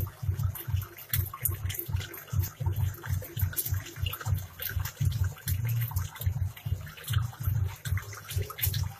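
Aquarium aeration bubbling: water gurgling in an uneven run of low burbles, with fine popping of bubbles at the surface.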